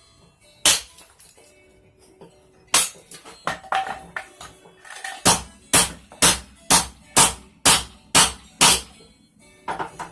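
Hammer blows on a railroad spike on an anvil, each with a ringing clang: two single strikes, then a steady run of about eight strikes, roughly two a second.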